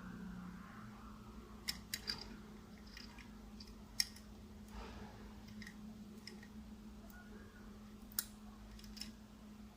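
Small parts of a 1:50 scale die-cast model truck and low-loader trailer clicking as they are handled and moved: a few scattered sharp clicks, the loudest about four seconds in, over a faint steady hum.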